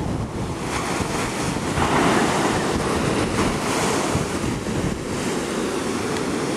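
Ocean surf breaking and washing up the beach in a steady rush, with wind buffeting the microphone. The surf swells a little about two seconds in.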